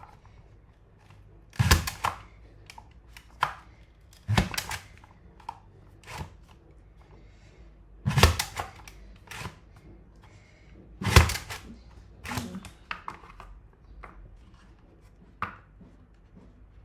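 Safe Slice mandoline slicer being pushed down through a potato to cut julienne chips, each stroke a sharp thunk of the blade and plastic body. Four loud strokes a few seconds apart, with lighter knocks and clatter between them.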